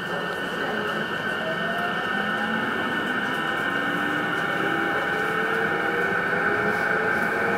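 Onboard running sound of a JR East E233 series electric train pulling away and gathering speed: the traction motors' whine climbs in pitch over a steady rumble of wheels on rail, growing slowly louder.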